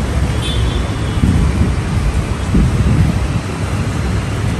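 Loud, low rumble of wind buffeting the microphone over street traffic noise.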